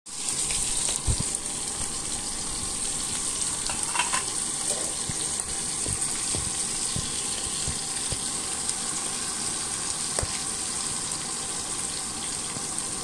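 Fish pieces sizzling steadily as they shallow-fry in hot oil in a kadhai, with a few sharp clicks of the metal spatula against the pan as they are turned.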